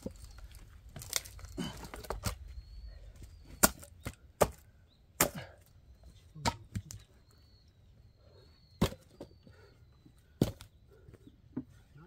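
A small red-handled axe splitting firewood on a chopping block: about eight sharp wooden chops at uneven intervals, the loudest strokes coming in quick succession near the middle.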